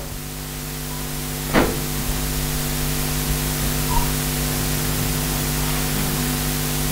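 Steady hiss with a low electrical hum, the background noise of the recording, with one brief short sound about one and a half seconds in.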